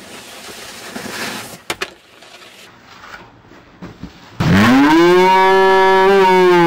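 A long, loud mooing call about four seconds in, swooping up to one steady pitch, held for about two and a half seconds, then dropping off. Before it there is only faint background with a couple of small clicks.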